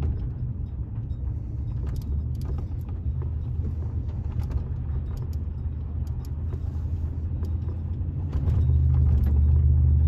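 Toyota Tundra pickup on the move, heard from inside the cab: a steady low engine and road rumble that grows louder about eight and a half seconds in.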